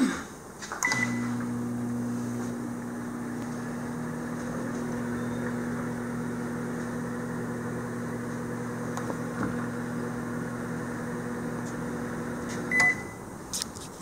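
Rival countertop microwave oven running with a steady hum, started by a press of its keypad with a short beep about a second in, and shut off near the end with another short beep.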